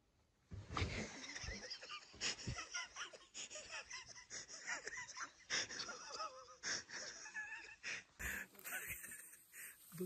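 Stifled, wheezy laughter coming in breathy fits, starting about half a second in and running on and off until near the end.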